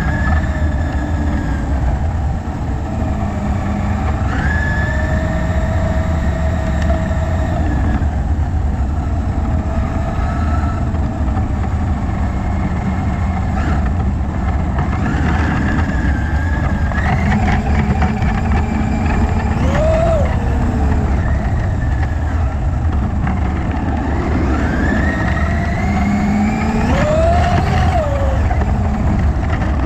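On-board sound of a Traxxas UDR electric RC desert truck driving over gravel: its brushless motor and drivetrain whine, rising and falling in pitch with the throttle, over tyre and gravel noise and a heavy low rumble.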